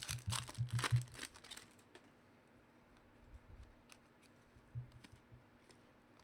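Crinkling and rustling of trading-card packaging being handled and torn, for about the first two seconds, then only a few faint taps and clicks.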